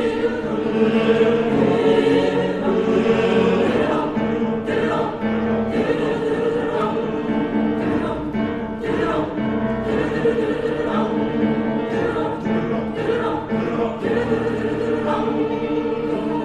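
Youth choir singing in harmony, holding sustained chords in short phrases.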